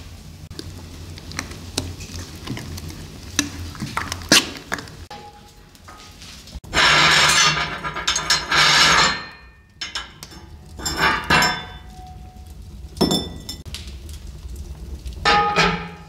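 A spoon clinking lightly against a steel tray, then cast-iron hotplate rings on a wood-burning cookstove dragged with a metal hook, a loud scrape followed by several clanks. Near the end a steel pan is set down on the iron stovetop with a ringing clang.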